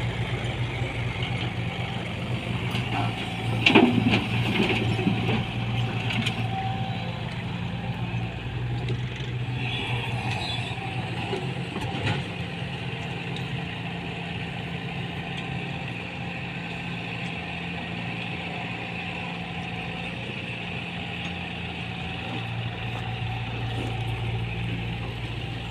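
Tata Hitachi 120 hydraulic excavator's diesel engine running steadily under load, with a steady high whine over the engine hum and a louder clatter about four seconds in.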